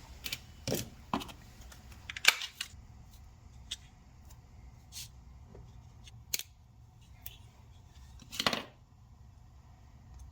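Scattered light clicks, taps and rustles of small parts and tools being handled while an aluminium PCV barb fitting is fitted to an air-oil separator, with one louder scraping rustle about eight and a half seconds in.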